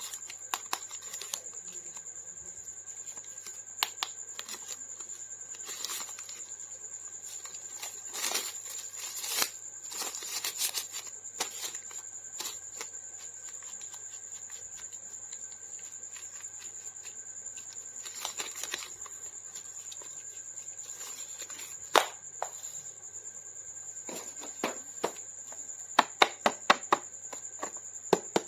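Hands handling plastic toy packaging and action figures: scattered sharp clicks and short crinkling bursts, with a quick run of clicks near the end. A steady high-pitched whine and a low hum sit underneath.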